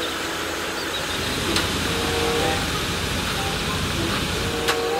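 Ready-mix concrete mixer truck running steadily while wet concrete pours down its chute and is spread. A couple of sharp clicks from the workers' tools are heard.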